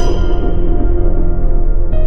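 Movie trailer soundtrack music: a deep low rumble under several held steady tones, with the brighter upper sounds cutting off right at the start as the title appears.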